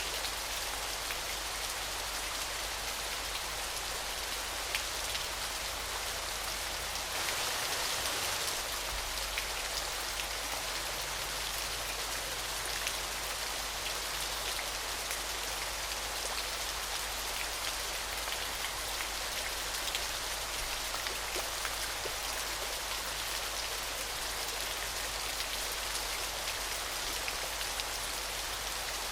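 Steady spattering of falling water, a dense even hiss sprinkled with small sharp drop splashes, a little louder for a couple of seconds about seven seconds in.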